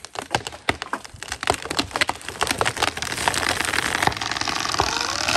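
Rapid, irregular cracking and splintering of wood, the snaps coming thicker until they merge into a rushing swish of branches and leaves near the end: a tree breaking at its cut and coming down.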